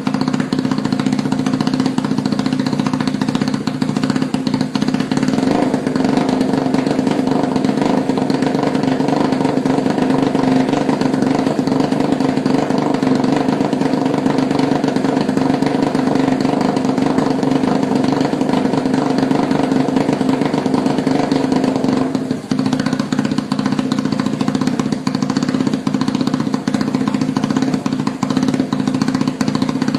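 Supercharged Yamaha Y15ZR motorcycle's 150 cc single-cylinder engine running steadily at idle through its exhaust, with no revving. Its note turns slightly fuller about five seconds in and dips briefly about twenty-two seconds in.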